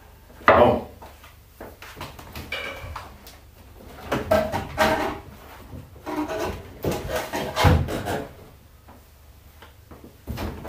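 Fishing gear being handled and moved about on a kayak: irregular knocks, rubs and clatters, the loudest about half a second in and again around four to five and seven to eight seconds in.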